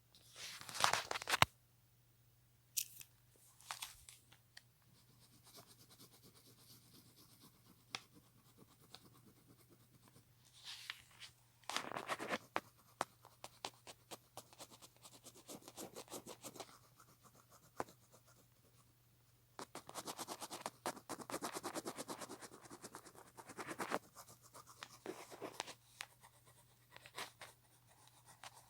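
Small scratching and rubbing handling sounds that come in irregular bursts, with quick runs of fine clicks over a faint steady hum.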